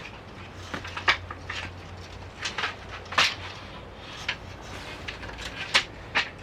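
Irregular hard clacks and knocks of camping gear being handled during setup, about nine in all, the loudest about a second in, about three seconds in and near the end, over a steady low rumble.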